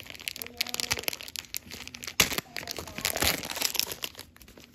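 Plastic wrapper of a football trading-card pack crinkling and tearing as gloved hands open it and pull out the cards, a run of irregular crackles with one sharp crackle a little past two seconds in.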